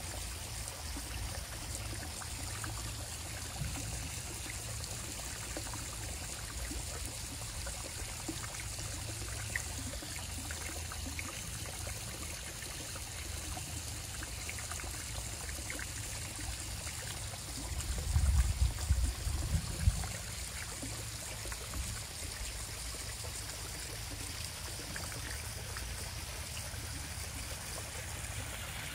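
Small rock waterfall running steadily into a backyard koi pond, a constant hiss of falling water. A low rumble swells for about two seconds past the middle.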